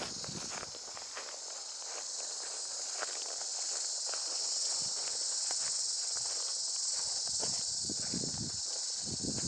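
Footsteps walking on a woodland path, a steady crunch of short steps, over a continuous high-pitched drone of insects.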